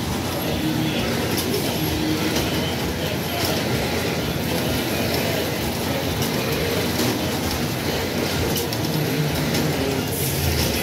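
Steady mechanical rumble and clatter of a kiddie ride turning, its platform of small toy motorbikes and cars spinning.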